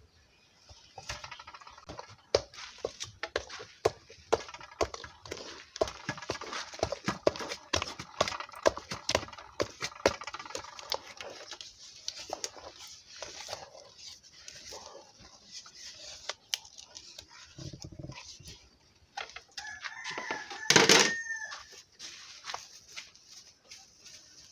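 Wooden turning stick knocking and scraping against a metal pot as stiff fufu dough is stirred, many irregular knocks. About twenty seconds in, a chicken gives one loud call.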